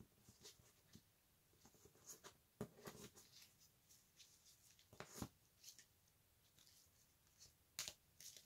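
Faint handling of trading cards in clear plastic top loaders and sleeves as they are gathered and stacked: a scattering of light clicks and short rustles, with near silence between.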